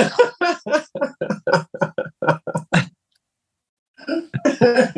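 A person's voice making a quick run of short wordless syllables, about five a second, for nearly three seconds, then a pause of about a second, then more voice near the end.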